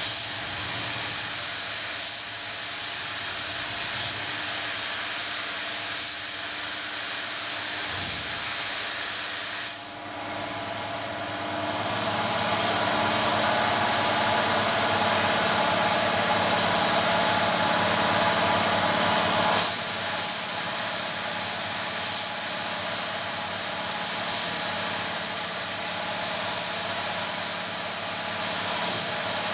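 Compressed-air spray gun hissing steadily as it sprays lacquer sealer onto a wooden door, with a steady machine hum underneath. The hiss drops back about ten seconds in and comes back strongly a little before twenty seconds.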